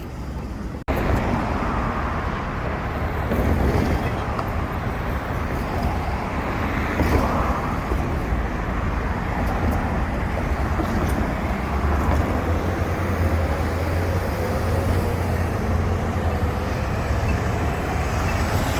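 Steady road traffic noise: cars passing with a constant low rumble, starting abruptly about a second in.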